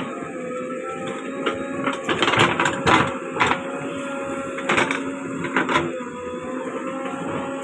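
JCB backhoe loader's engine running under load with a steady hydraulic whine. Several short knocks and scrapes of the digging gear come through it, bunched between about two and six seconds in.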